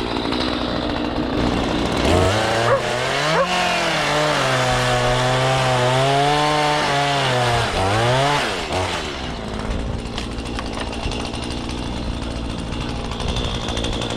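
Two-stroke chainsaw cutting into a Scotch pine block while carving. The engine runs high, its pitch drops and wavers for several seconds in the middle as it works through the wood, then rises again.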